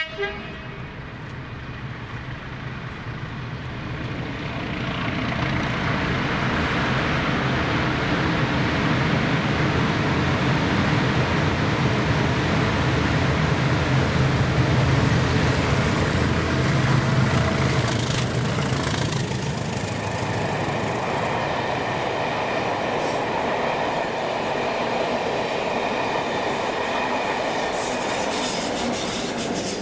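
Diesel-hauled railtour train passing: the engine sound of the class 20 and class 47 locomotives builds up over several seconds, then gives way about two-thirds of the way through to the steady rolling noise of the coaches going by.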